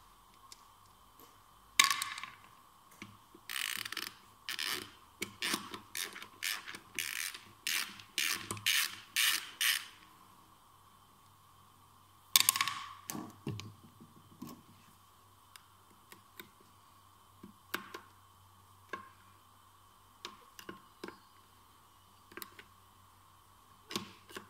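Metal clicking and rattling from a partly dismantled manual gearbox as its shafts and internal parts are worked by hand: a sharp click about two seconds in, a run of quick metallic strokes over the next several seconds, another sharp click about halfway, then scattered light clicks.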